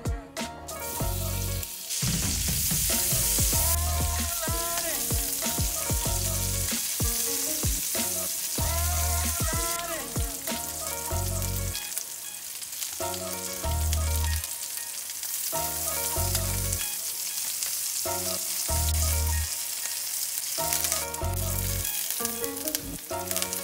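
Onion and carrot pieces searing in oil and butter in a stainless steel frying pan: a steady sizzle, loudest about two to four seconds in, with the occasional scrape of tongs.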